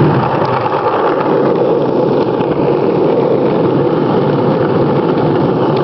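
Skateboard wheels rolling steadily over rough asphalt, a continuous loud rumble as the board is towed along by a dog.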